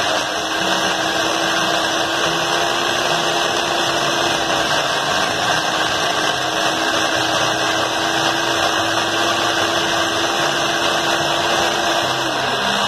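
Small electric blender (mini chopper) running steadily as it purees fried green chillies, shallots and garlic into a fine paste; its pitch sags slightly near the end.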